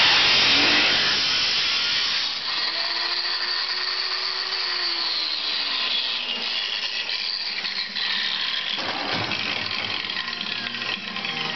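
Angle grinder's cut-off disc cutting through the steel roof pillar of a 1949 Plymouth, a loud hiss. About two seconds in the cut ends and the grinder runs on off the metal, its whine falling away a few seconds later.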